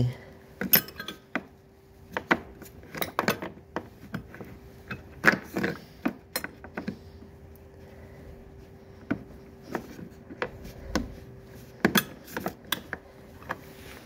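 Metal sockets and hand tools from a Craftsman socket set clinking and clicking irregularly as they are handled, over a faint steady hum.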